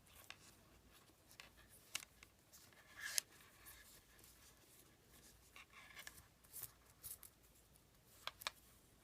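Faint rustling and short scrapes of paracord being handled, pulled through and tightened while tying a cobra weave. The scrapes come scattered, the loudest about three seconds in.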